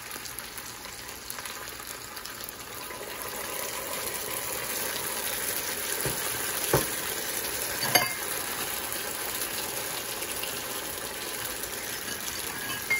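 Black pepper mushroom sauce sizzling on a preheated cast-iron sizzling plate: a steady hiss that grows a little louder about four seconds in. Two short clicks come near seven and eight seconds.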